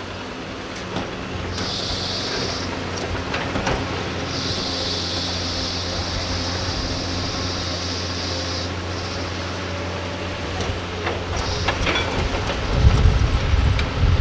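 Doosan hydraulic excavators' diesel engines working under load with a steady low drone. A high hydraulic hiss comes in twice for a few seconds as the arms swing and dig, with occasional knocks of soil and rock. Near the end, wind buffets the microphone with a low rumble.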